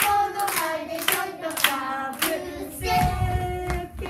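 Hand claps on the beat, about two a second, under a song sung by a woman and young children; the clapping stops about two seconds in. The singing then holds a long note over low thudding.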